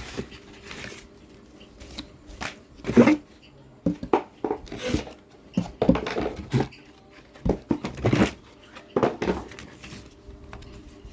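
Irregular rustling and crinkling of packaging, with light knocks and clicks, as items are handled and taken out of a printer's box.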